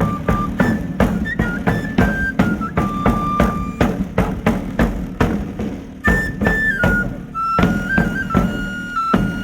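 Traditional pipe-and-drum music: a high, shrill pipe melody over a steady drum beat of about three strokes a second. The pipe drops out for a couple of seconds midway while the drum keeps going, then comes back in.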